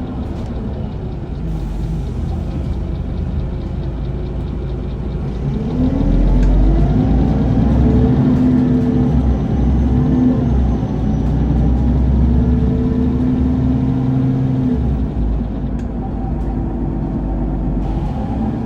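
Mercedes-Benz Citaro CNG city bus engine and ZF Ecomat automatic gearbox heard on board. It runs low and steady at first, then from about five seconds in the engine note rises and grows louder as the bus accelerates, and it eases off again about fifteen seconds in.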